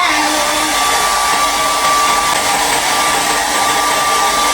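Handheld hair dryer running steadily: an even rush of blowing air with a steady whine from its motor.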